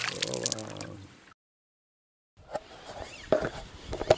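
A released pike splashing at the surface beside an inflatable boat as it darts off, a brief burst of splashing that cuts off abruptly. After a second of dead silence come faint scattered clicks and handling noise.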